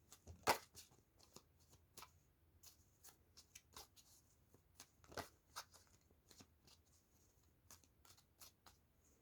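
Tarot cards being handled and laid out on a table: faint, irregular soft clicks and slaps of cards, with two louder snaps, one just after the start and one about five seconds in.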